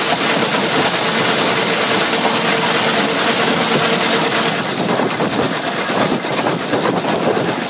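6-inch scale steam traction engine running along a road: quick, even exhaust beats from the chimney over a steady hiss of steam and running gear. A steady tone in the background stops about halfway through.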